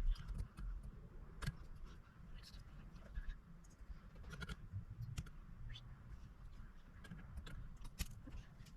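Scattered light clicks and taps at irregular intervals over a low rumble: small tools and parts being handled and set down on a workbench.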